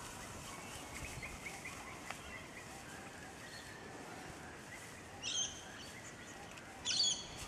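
Quiet outdoor background with a few faint bird chirps, then two short, shrill whistles about five and seven seconds in: a handler's whistle commands to a working cattle dog.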